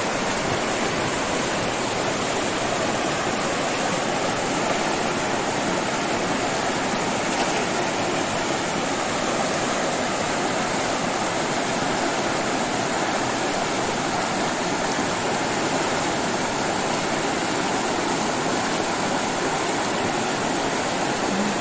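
Fast, muddy river rushing over rocks and through rapids: a steady, unbroken sound of running water.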